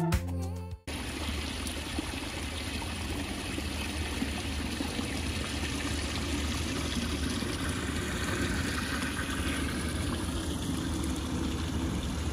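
Water trickling and splashing steadily over the rocks of a small waterfall into a garden pond. Music at the start cuts off abruptly just under a second in.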